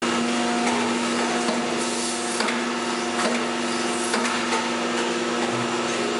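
Van Dorn 400-ton hydraulic plastic injection molding machine running through a cycle: a steady hum from the hydraulic drive, with a few short knocks as the clamp opens the mold and closes it again.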